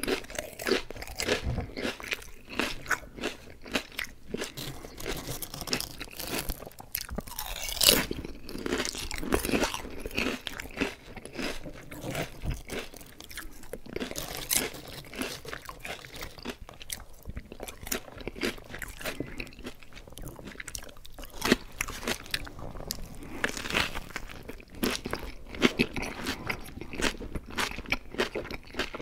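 Close-miked eating of Lay's Classic potato chips: crisp bites and crunchy chewing, an uneven run of sharp crunches with the loudest about eight seconds in.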